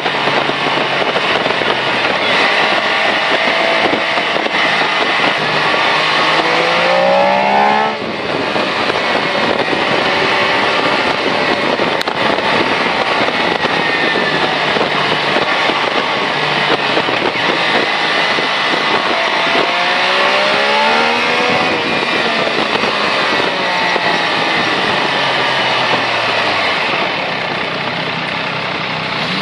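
MV Agusta Rivale 800's three-cylinder engine accelerating hard, its pitch climbing through the revs twice. The first run cuts off suddenly about eight seconds in, and it all sits over a steady rush of noise.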